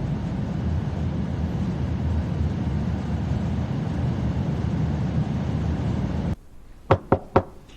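Steady low rumble of a vehicle in motion, which cuts off abruptly about six seconds in. Then three quick knocks on a door.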